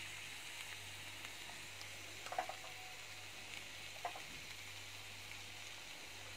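Squid pieces frying in butter in a non-stick pan, a faint steady sizzle, with a couple of light clicks in the middle.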